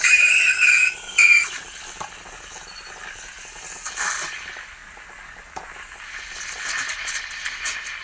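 Steam wand of a vintage Atomic stovetop espresso machine frothing milk in a glass, on a good head of steam. A loud steam screech with a whistling tone for the first second and a half settles into a steady hiss, which turns into a rapid spluttering crackle near the end as the milk froths.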